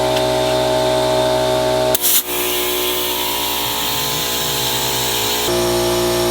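Air compressor motor running steadily while an ATV tire is inflated to seat its bead after bead sealer has gone in. About two seconds in the motor's tone drops and a hiss of air comes up; near the end the earlier tone comes back.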